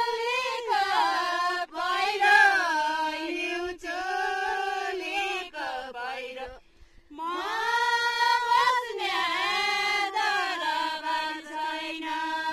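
Women singing a Nepali Deuda folk song together without accompaniment, in long drawn-out phrases with a short break about halfway through.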